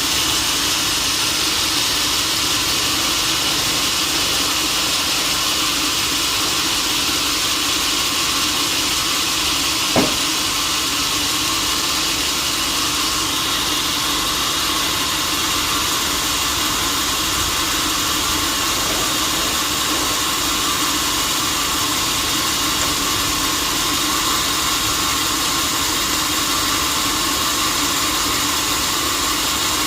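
Sawmill machinery running steadily with a strong hiss-like noise and a low hum, with a single sharp knock about ten seconds in.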